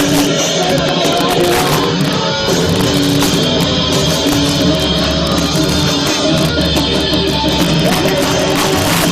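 Live heavy rock band playing loud, with distorted electric guitars and a drum kit, recorded with badly distorted sound.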